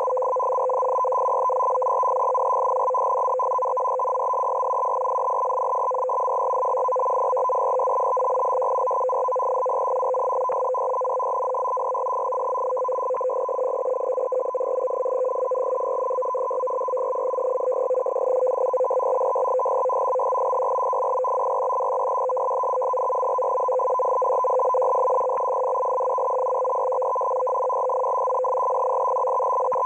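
Russian M42b shortwave signal on 14380 kHz received through a web SDR in CW mode: a steady, rapidly keyed data sound between two tones, one near 500 Hz and one near 1 kHz, with faint band noise.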